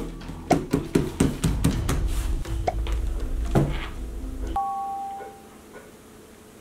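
Dramatic background music with a run of sharp percussive hits, cutting off about four and a half seconds in on a two-note doorbell-like ding; after that only faint room tone.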